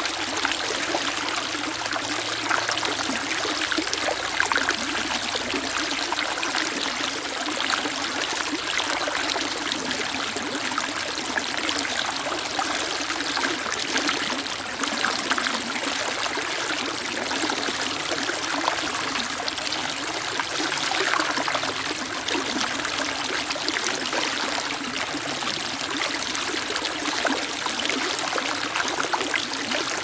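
Shallow stream water running fast over rocks, a steady rushing and splashing babble.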